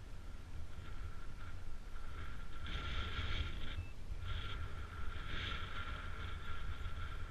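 Wind buffeting the microphone in a steady low rumble. A fainter, higher hiss with a thin steady tone swells twice, about two and a half seconds in and again about four and a half seconds in.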